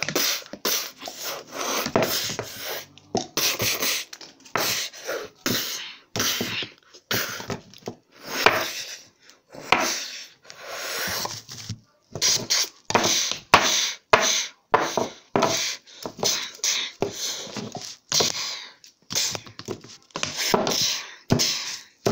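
A child making mouth sound effects for a toy fight: a fast, irregular string of short breathy bursts, several a second.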